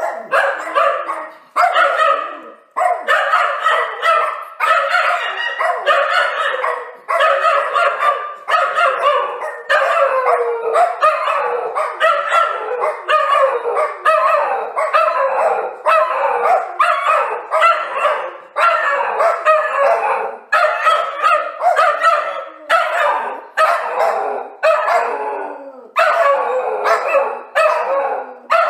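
A dog barking angrily in a rapid, unbroken string of barks, two or three a second.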